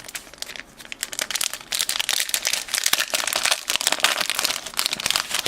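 Wax-paper wrapper of a 1984 Topps hockey card pack crinkling and tearing as it is peeled open by hand, a dense run of small crackles that grows busier about two seconds in.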